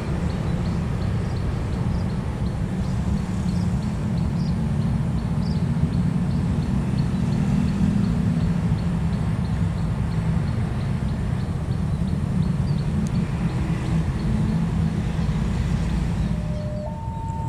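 A steady low engine rumble, with a faint, regular high ticking above it. Music comes in near the end.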